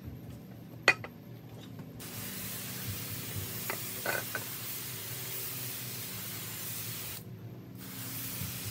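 A sharp click about a second in, then a pressurized spray hissing steadily for about five seconds, stopping briefly and starting again near the end.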